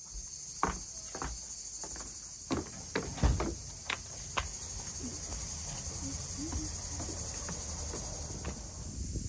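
A steady, high-pitched chorus of insects, with a scatter of sharp knocks and thumps in the first few seconds.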